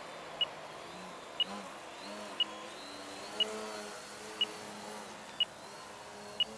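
Radio-control transmitter beeping about once a second as its flight timer counts down, over the hum of the model aerobatic plane's motor and propeller rising and falling in pitch as it flies by.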